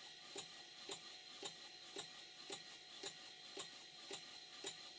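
Stuart 5A model steam engine running slowly and evenly on compressed air, a soft regular exhaust beat about twice a second.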